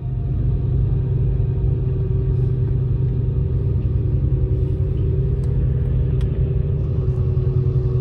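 Steady low rumble with a faint steady hum above it, from the battery-electric car ferry's machinery as it comes in to dock; a few faint clicks midway.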